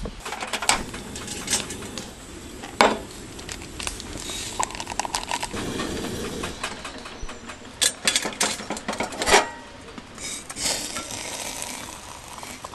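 Metal camp cookware and utensils clinking and knocking as they are handled on a camp table, a scattered run of sharp clicks and clanks.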